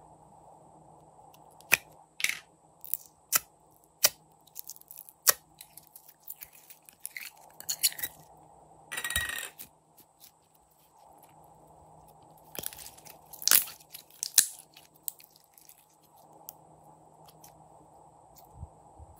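Glossy slime being squeezed, kneaded and stretched by hand, giving scattered sticky clicks and pops, with longer squelching bursts about nine and thirteen seconds in.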